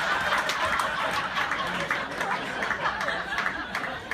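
Audience laughing after a joke, the laughter dying down.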